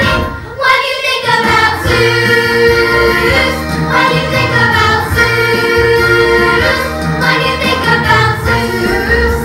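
A chorus of voices singing a musical-theatre number over instrumental accompaniment, with steady low notes underneath; the sound dips briefly near the start, then the singing carries on.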